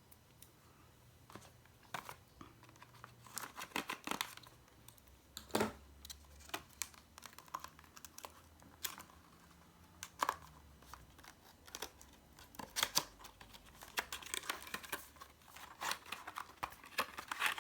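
Product packaging being opened by hand: irregular crinkling, tearing and handling clicks, spread unevenly with short pauses.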